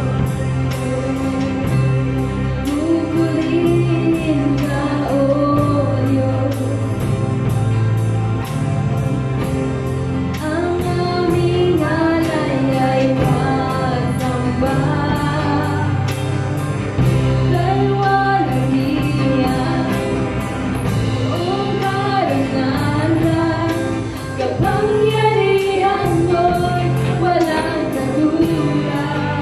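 Women singing a Tagalog worship song into microphones, one lead voice with others joining, over a live band with a drum kit keeping a steady beat.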